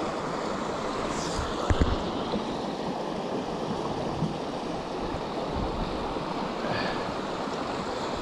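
Shallow stream running over a small cascade: a steady rush of water. A short thump a little under two seconds in.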